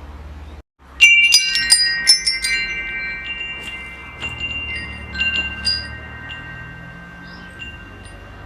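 Wind chimes struck in a quick flurry about a second in, right after a brief silent gap, their high notes ringing on and slowly fading; a few more scattered strikes follow a few seconds later.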